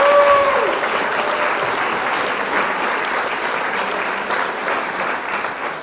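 Applause from many hands, a dense steady clapping that slowly eases down, with a brief high voice rising and falling over it at the start.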